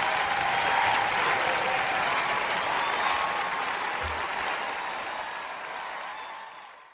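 Studio audience applauding after a performance. The applause slowly dies down and fades out near the end.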